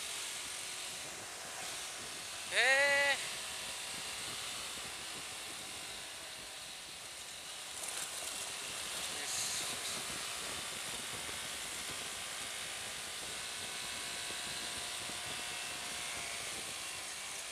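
Steady wind and road rush on the microphone of a moving motorcycle, the engine low beneath it. About three seconds in, a short loud vocal call breaks through.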